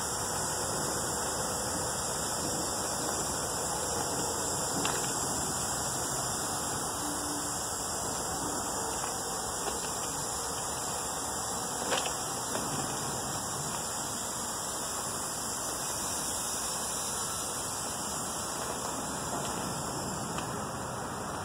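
Steady, even hiss of background noise, with faint clicks about five seconds in and again about twelve seconds in.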